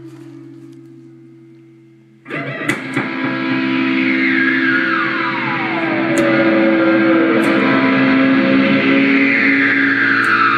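Electric guitar through effects: a held note dies away, then about two seconds in a loud chord is struck and rings on, with tones sliding slowly down in pitch twice.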